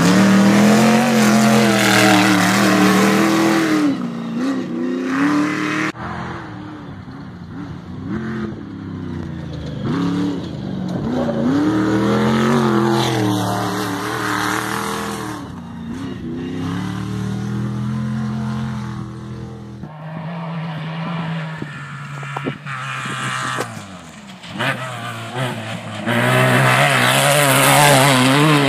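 Off-road race vehicles passing one after another, engines revving up and falling back repeatedly as they accelerate and shift along the dirt track. The loudest passes come at the start and again near the end.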